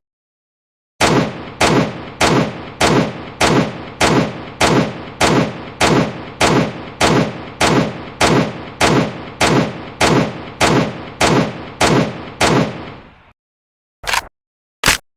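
MK-14 semi-automatic rifle firing about twenty evenly paced single shots, a little under two a second, each with a short echoing tail. Two brief sharp sounds follow near the end.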